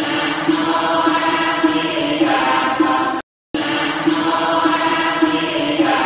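Buddhist devotional chanting with music, a short phrase repeated in a loop. The sound cuts out completely for a moment just past three seconds in, then the phrase starts again.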